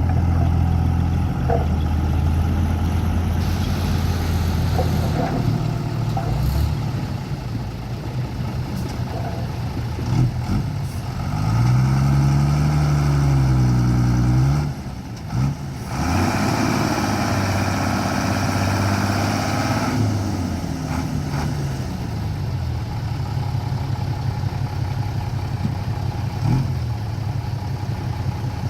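Dump truck engines running and idling, with one engine revving up and easing back down about halfway through, followed by a few seconds of harsher, noisier sound.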